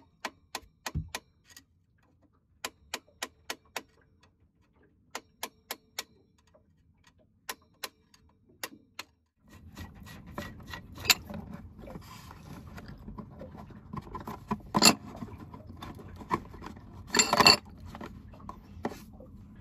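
Light metallic taps in short runs of four to six: a screwdriver struck with a hammer against the small metal housing of a Yanmar 3GM30F marine diesel's secondary fuel filter, to loosen it. From about halfway, the housing is worked by hand, a steady rustle of handling with a few sharper knocks of metal.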